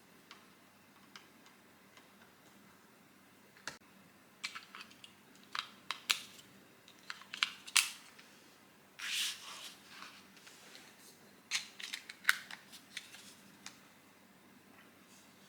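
Sharp plastic clicks and knocks, with a brief rustle, from hard plastic robot vacuum parts being handled during unboxing. The clicks come irregularly over several seconds.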